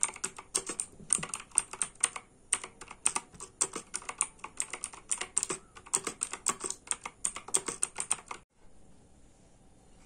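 Fast typing on a Quantum QHM9800 Rapid Strike mechanical keyboard with blue switches: a quick run of sharp key clicks with a brief pause about two and a half seconds in. The typing stops about eight and a half seconds in.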